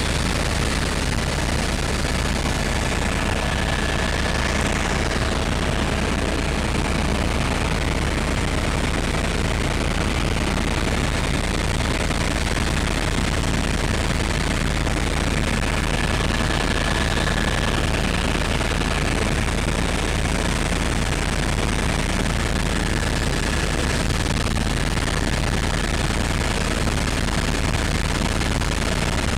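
Helicopter cabin noise in flight: the steady, dense din of the rotor and engine with a heavy low rumble, a rapid rotor chop, and a faint steady high whine.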